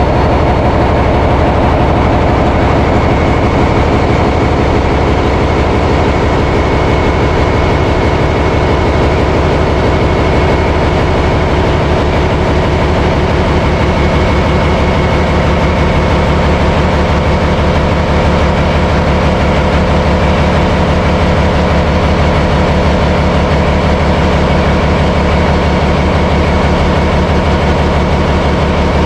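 Large marine diesel engines in a ferry's engine room running steadily at constant speed: a loud, even drone with a rapid, regular pulse of firing strokes.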